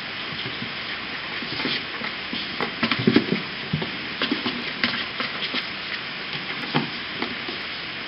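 Kittens at play, their claws scratching and tapping on a cardboard box and a cloth blanket: a busy cluster of irregular scratches and taps through the middle, over a steady hiss.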